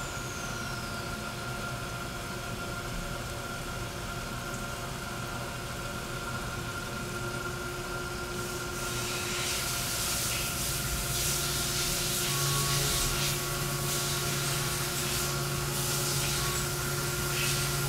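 CNC machining center cutting titanium with a ball end mill in full simultaneous five-axis motion under flood coolant. The spindle and cut give a steady, multi-toned whine. About eight seconds in, a loud, flickering hiss of coolant spray joins it.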